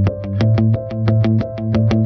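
Instrumental background music with a quick, steady beat over sustained synthesizer-like chords and a bass line.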